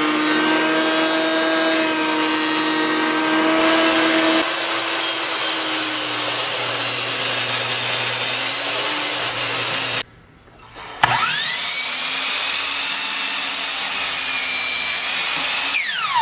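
A Porter-Cable benchtop thickness planer running as a cedar board feeds through, then a table saw running. After a short break, a saw motor spins up with a rising whine, runs steadily, and winds down near the end with a falling pitch, a miter saw between cuts.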